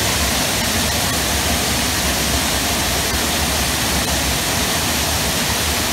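Loud, steady rush of a waterfall heard from close beside the falling water; it cuts off suddenly at the end.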